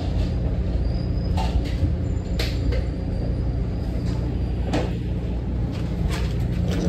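Steady low rumble inside a SEPTA Market-Frankford Line train car as it runs, with a few sharp clanks, the loudest about two and a half seconds in.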